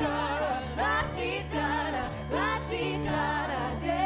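Musical theatre number from a live stage recording: cast voices singing over a band accompaniment with steady bass notes.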